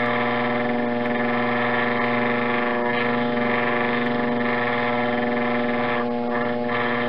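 Potter's wheel motor running at a steady speed, a constant hum with many overtones, as a textured rib is held against the turning clay pot to press in a pattern.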